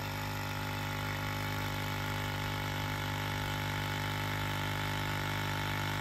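Ford Super Duty diesel's electric vacuum pump running steadily as it pulls down on the vacuum system. It never cycles off, meaning it is not yet reaching its roughly 15-pound cut-off.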